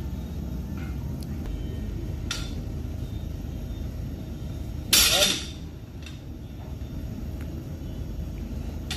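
Barbell loaded with rubber bumper plates coming back down onto the floor after a deadlift: one loud impact about five seconds in, lasting about half a second, over a steady low hum.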